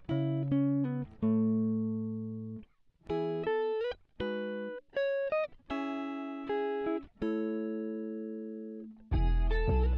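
Background music: guitar notes played one at a time, each ringing out and fading, some sliding up in pitch. A fuller, louder band sound comes in about nine seconds in.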